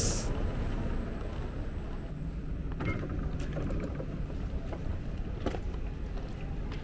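Steady low background rumble with a few faint clicks, about three and five and a half seconds in.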